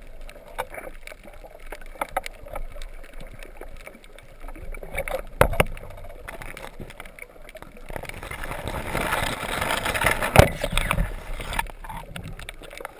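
Muffled underwater noise heard through a camera housing: water moving and rushing past, with scattered light knocks. A louder rushing stretch comes about eight to eleven seconds in, with two sharp knocks, one about five seconds in and one about ten seconds in.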